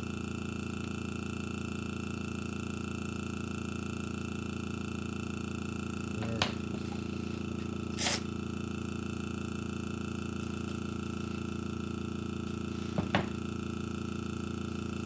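Airbrush air compressor running with a steady, even hum. Over it come a few short sharp clicks, about six and thirteen seconds in, and one brief hiss about eight seconds in.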